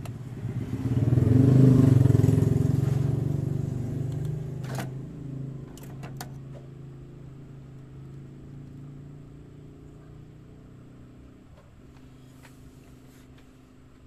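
A motor vehicle engine going by, loudest about two seconds in and then fading slowly, with a few sharp clicks in the middle.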